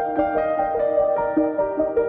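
Background music: a quick, steady run of ringing notes.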